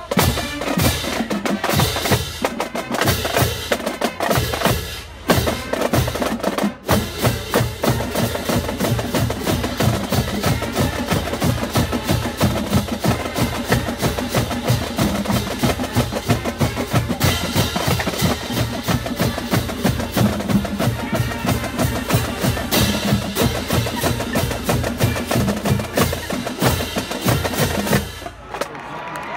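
College marching band playing a fast stand tune: snare and bass drums and crash cymbals beat out a quick, steady rhythm under the horns. The playing breaks off briefly twice in the first few seconds, then runs on and stops about a second before the end.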